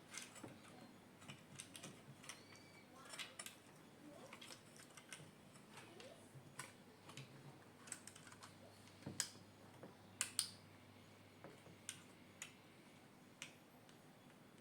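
Scattered light clicks and taps, irregular and spaced out, with a few louder snaps near the middle, from small plastic and metal parts being handled while a washing machine's wash timer is fitted.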